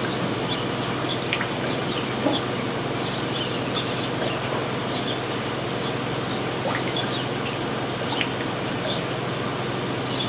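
Steam locomotive standing in steam, the LNER V2 Green Arrow: a steady hiss with a low hum underneath, and scattered short high-pitched chirps over it.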